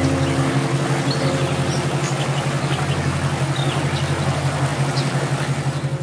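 Shallow river rapids rushing over rocks as a steady hiss, under relaxation music: a low pulsing drone throughout, and a held chord that ends about two seconds in. A few short bird chirps sound over the top.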